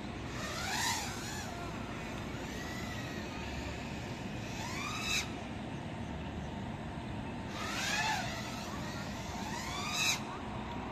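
GEPRC Mark5 5-inch FPV freestyle drone's brushless motors whining overhead, the pitch sweeping up and down with each burst of throttle during flips and loops. Louder swells come about a second in and again near five, eight and ten seconds, over a steady background hiss.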